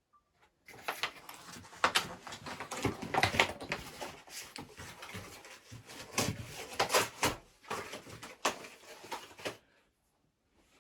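Irregular knocks, clicks and rustling of things being handled, starting just under a second in and stopping shortly before the end.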